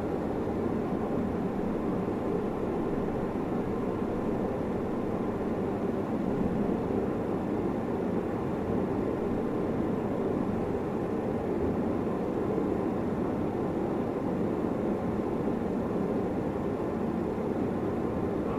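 A steady, even rushing noise, heaviest in the low-middle range, with no strokes or rhythm standing out.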